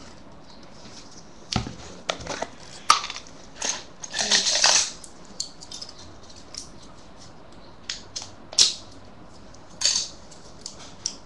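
Paper fingerboard cut-outs rustling and tapping as they are handled, in scattered short bursts with a few clicks; the longest rustle comes about four seconds in.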